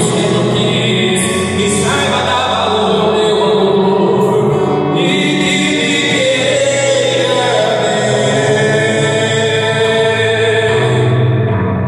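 Sertanejo duo singing live: two male voices into microphones over a strummed acoustic guitar.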